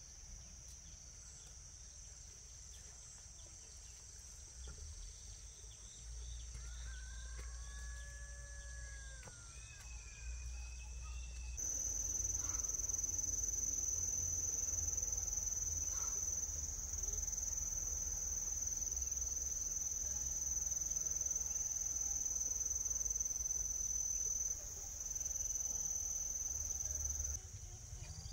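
Insects droning in a steady high-pitched chorus, much louder from about a third of the way in. A short call from a bird rises and falls about eight seconds in.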